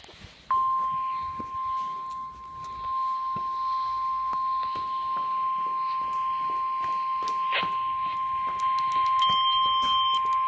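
NOAA Weather Radio warning alarm tone: one steady high tone at about 1050 Hz, held for about ten seconds from about half a second in and cutting off suddenly, the signal that a warning broadcast, here a severe thunderstorm warning, follows. Faint clicks and knocks sound over it.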